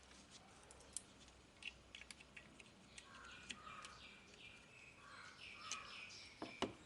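Faint bird chirps in the background, with scattered light clicks and a few sharper knocks near the end.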